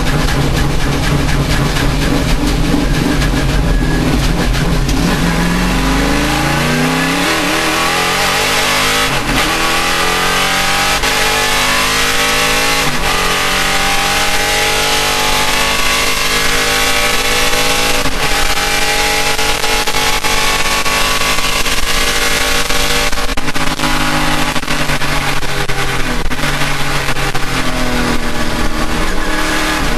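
Race car engine pulling hard from low revs, its pitch climbing over a few seconds and then holding high, with short breaks every few seconds and a brief dip near the end.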